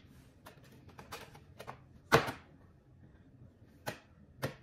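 A few sharp taps and knocks of eggs and eggshells being handled over a plastic mixing bowl, the loudest a quick double knock about two seconds in, with two more taps near the end.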